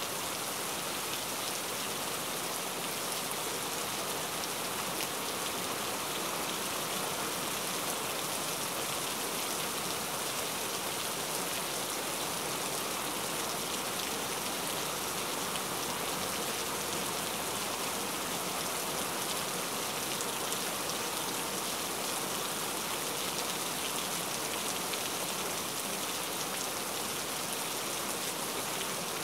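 Heavy rain pouring onto a flat rooftop, a steady, even hiss of splashing drops.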